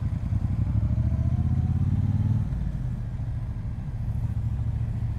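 Triumph Bonneville Speedmaster's 1200 cc parallel-twin engine running under light throttle as the bike pulls away, heard from the rider's seat. About two and a half seconds in the engine note drops and runs quieter as the throttle is eased.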